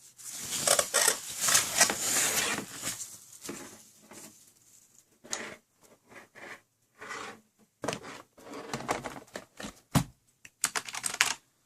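Packaging being handled: a dense crinkling rustle for the first three seconds, then scattered short rustles, with a few sharp clicks and knocks.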